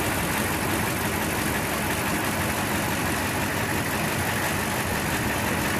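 Replacement Toyota engine idling steadily, warmed up after about ten minutes of running.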